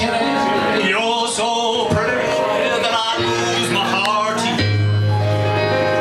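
Live band music: a man singing a wavering melody over electronic keyboard, with a deep held low note coming in a little past the middle.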